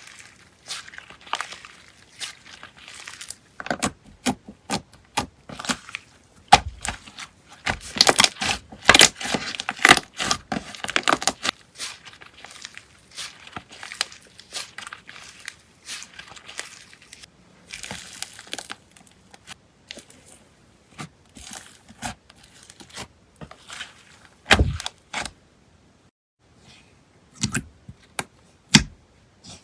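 Slime being handled, squeezed and pressed, giving rapid sticky clicks and pops. The clicks come thickest about a third of the way in, then thin out to a few separate snaps near the end.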